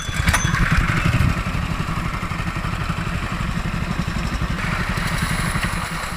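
Small gasoline engine running steadily, driving the water pump that washes material through a sluice box, with water rushing over the box.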